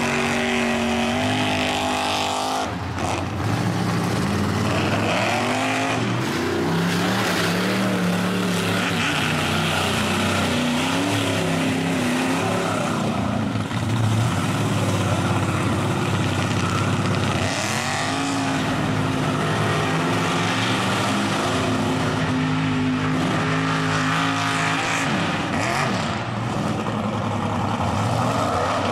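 Engines of lifted mud trucks revving hard at high rpm while the trucks churn through a mud pit, the engine pitch rising and falling again and again, over the rush of spinning tires throwing mud and water.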